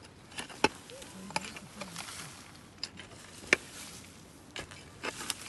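Scattered sharp knocks and clicks, about nine in all at uneven intervals, with a faint voice briefly in the background about a second in.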